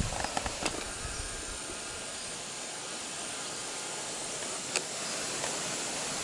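Steady outdoor background hiss, with a few soft clicks in the first second and one sharp click about five seconds in.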